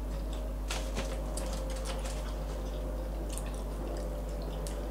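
Soft eating sounds: a fork picking at a piece of watermelon, light chewing and a few faint clicks, over a steady low hum.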